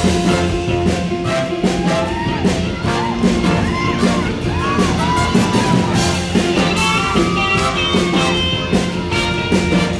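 Upbeat band music playing the instrumental opening of a show choir number, with a steady drum beat.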